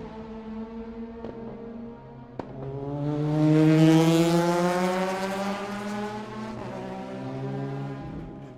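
Indy race car engines passing in a group: several high-revving engine notes at once, one climbing in pitch as it accelerates and swells to its loudest about four seconds in, then fading away near the end. A sharp click about two and a half seconds in.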